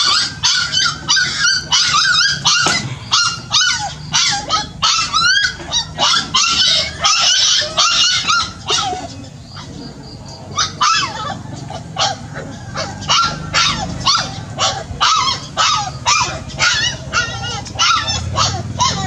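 Puppy yipping and barking in a quick series of short, high calls, about two or three a second, with a brief break about halfway through.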